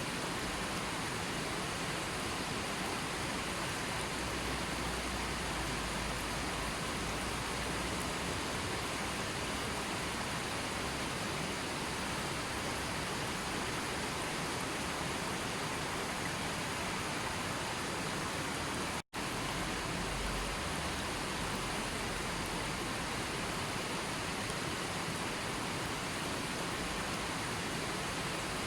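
Steady, even rushing of water, with no other events in it. It drops out to silence for a split second about two-thirds of the way through.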